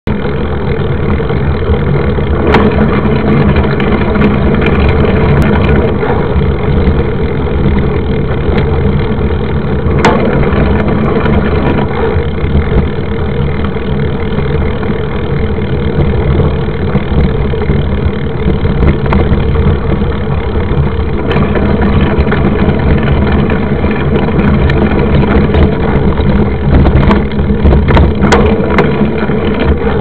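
Steady wind buffeting and rumble on a bike-mounted camera as a mountain bike rolls fast on a dirt road, with the knobby tyres rolling over gravel. A few sharp knocks and rattles from the bike going over bumps, several close together near the end.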